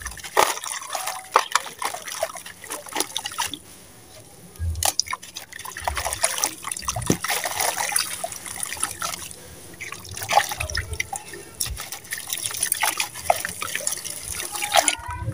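Wet sand-cement lumps crumbled between the hands, gritty crunching with pieces and drips falling into water in a plastic tub. The sound comes in irregular crackles, with a brief lull about four seconds in.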